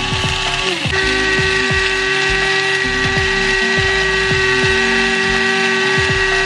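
Electric blade coffee grinder grinding whole coffee beans: a loud, steady motor whine that dips and picks up again about a second in.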